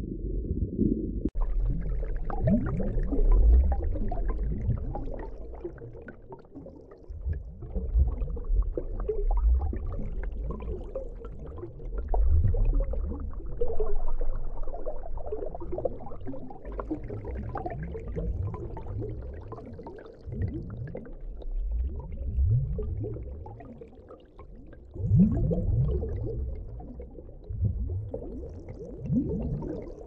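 Underwater sound of water and bubbles: low rumbling with bubbly gurgles that swell and fade every few seconds.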